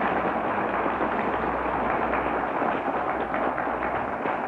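Audience applauding steadily, a dense clatter of many hands clapping at once.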